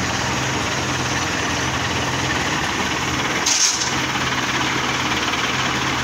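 Heavy diesel engine idling steadily, with a brief hiss about three and a half seconds in.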